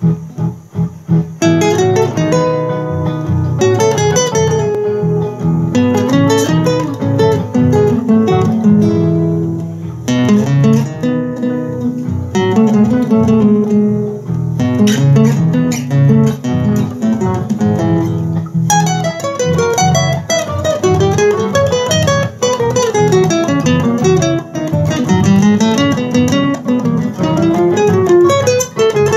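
Solo acoustic guitar playing a gato cuyano, an Argentine folk dance: strummed and plucked chords, giving way about two-thirds through to quick rising and falling runs of notes.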